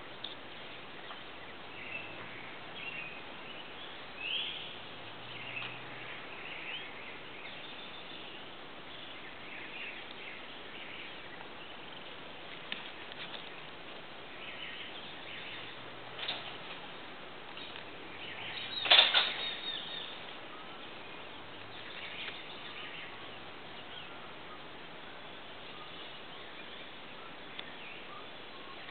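Scattered bird chirps and short calls over a steady background hiss, with a louder burst of calls about nineteen seconds in.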